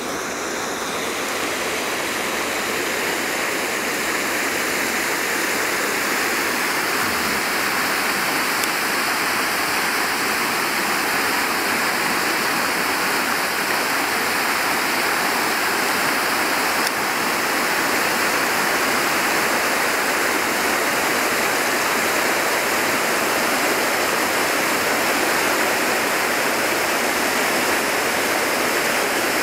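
Steady rush of flowing water, growing slowly louder over the first half and then holding.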